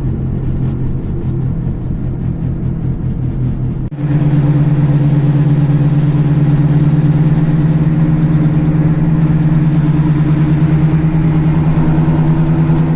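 Droning hum from a van's right wheel while driving. About four seconds in it turns suddenly louder and then holds steady. It is the noise under investigation, suspected to be a worn wheel bearing or a failing CV joint.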